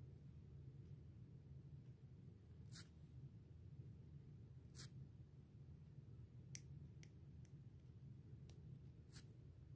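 Faint sharp snips of small steel nail nippers cutting a toenail, about seven in all: two spaced about two seconds apart, then a quicker run of snips in the last three seconds, over a low steady hum.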